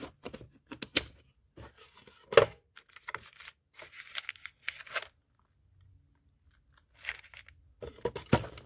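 Handling noise from tools and plastic tool cases in a toolbox drawer: scattered short clicks, knocks and scrapes, the loudest a sharp knock about two seconds in, with a quiet gap past the middle.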